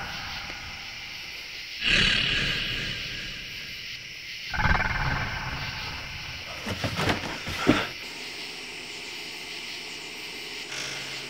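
Loud roar-like growls in separate bursts: one about two seconds in, another at about four and a half seconds, and a run of shorter, sharper ones around seven seconds.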